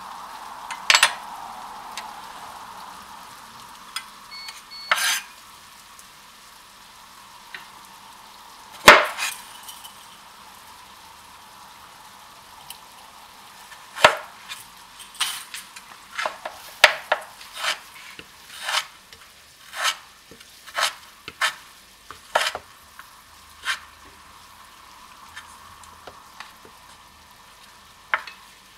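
Chef's knife slicing through peeled ginger and knocking on a wooden cutting board: a few separate cuts at first, then a run of cuts about one a second from about halfway through.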